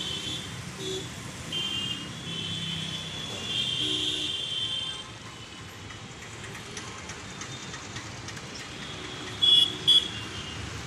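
City street traffic with vehicle horns: held horn tones sounding over the first few seconds, then two short, loud beeps near the end, over a steady traffic rumble.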